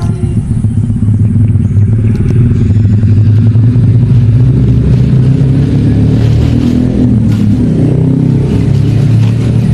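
An engine running steadily, a loud low hum.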